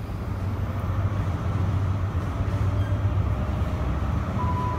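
Diesel engines of a Class 158 multiple unit running at the platform, a steady low rumble that grows a little louder about a second in. A thin steady high tone starts just before the end.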